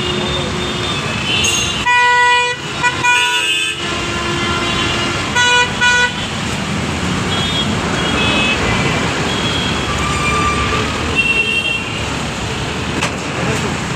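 Congested road traffic with vehicle horns honking again and again over steady engine and road noise. The loudest are four horn blasts: two longer ones about two and three seconds in, then two short toots close together around five and a half seconds in, with fainter beeps after.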